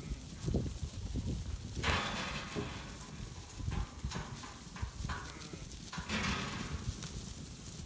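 Flock of merino ewes running over dry grass: irregular hoof thuds with bursts of rustling as they brush through the grass.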